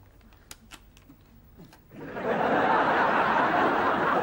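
Studio audience laughing, rising suddenly about two seconds in after a couple of quiet seconds with a few faint clicks.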